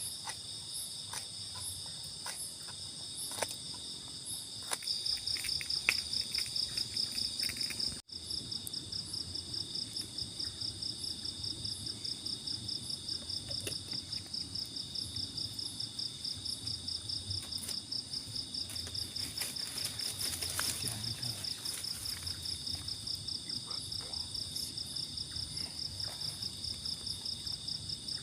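Insects calling in a steady, high-pitched, evenly pulsing chorus, with a few light clicks in the first several seconds.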